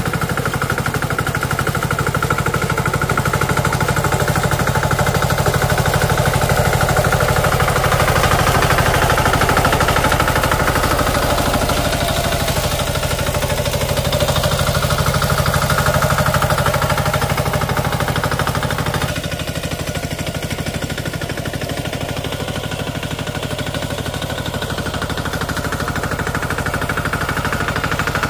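Small engine of a plowing tractor running steadily with a rapid, even firing beat, easing slightly in level about two-thirds of the way through.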